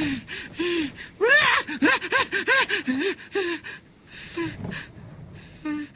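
A man gasping and crying out in terror, quick short breathy cries about four a second, thinning out to a few fainter breaths after about four seconds.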